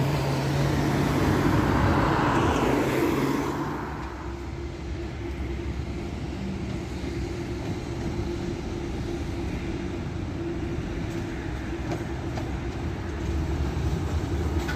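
Street traffic: a passing vehicle is loud at first and fades away about four seconds in, leaving a steady low background hum of city traffic.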